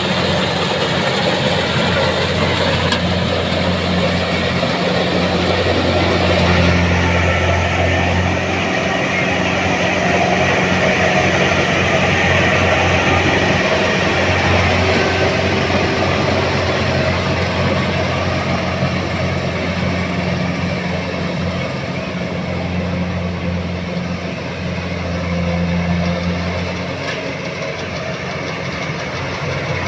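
Tracked combine harvester's engine running steadily, a low even hum over continuous machinery noise, its strength swelling and easing a little over the stretch.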